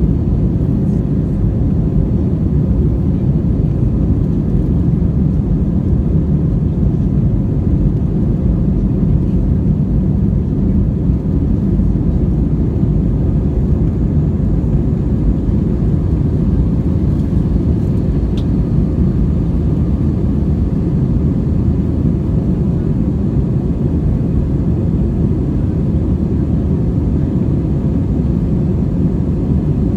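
Steady low rumble of an Airbus A320's jet engines and airflow heard inside the passenger cabin during the climb after takeoff.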